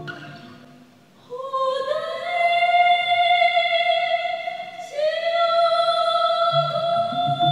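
A woman singing a Vietnamese song: two long held notes, the first sliding up into pitch about a second and a half in, the second starting about five seconds in. The accompaniment fades away near the start, and instruments come back in softly under the second note near the end.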